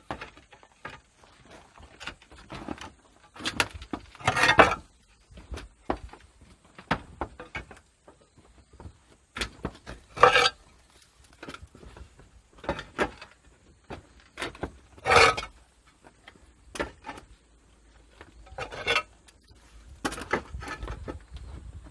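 Hard objects being handled and set down: a string of irregular clinks, knocks and clatters, five or six of them louder than the rest.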